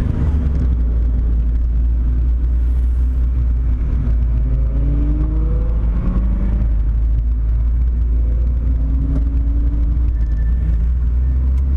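Volkswagen Corrado 1.8 16V four-cylinder engine running under way, heard from inside the cabin as a steady low drone; its note drops to a lower pitch right at the start and then holds, with faint rising whines over it in the middle.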